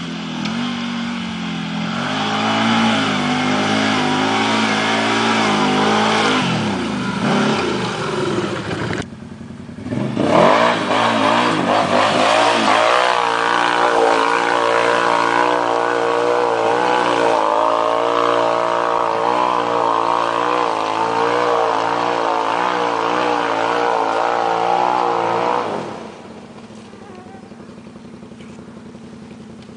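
Can-Am ATV's V-twin engine revving hard as it ploughs through deep mud, the note rising and falling with the throttle. It breaks off briefly about nine seconds in, comes back loud and held high, then drops to a faint distant drone near the end.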